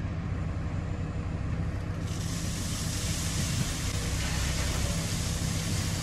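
Wood chips pouring from a telehandler bucket into a steel trailer, a steady hiss that begins about two seconds in. Underneath is the low, steady hum of a diesel engine running.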